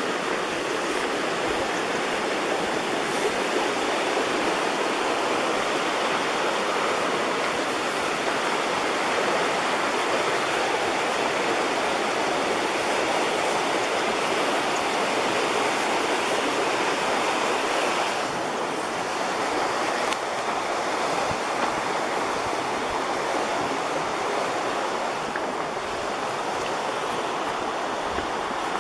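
A creek rushing steadily beside the trail, easing slightly about two-thirds of the way through.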